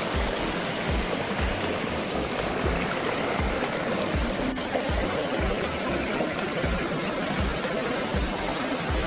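Shallow stream water rushing and babbling steadily over rocks, with a regular low beat of background music underneath.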